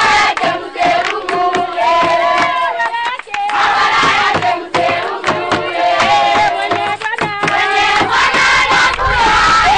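A crowd cheering and shouting, with hand-clapping and long held, sung calls over it.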